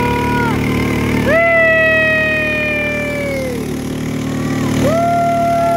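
Small gasoline engines of bumper boats running steadily. Three long, high-pitched tones are held over the engine noise, each falling off at its end; the middle and longest one starts about a second in.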